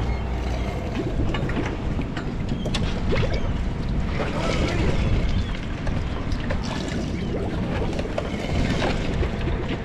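Sportfishing boat deck ambience: wind on the microphone and water noise, with faint voices and scattered clicks and knocks.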